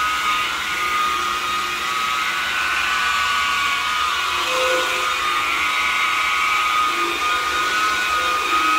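DeWalt variable-speed rotary buffer running steadily with a white foam pad, polishing rubbing compound into fresh paint on a motorcycle fuel tank; a steady high motor whine.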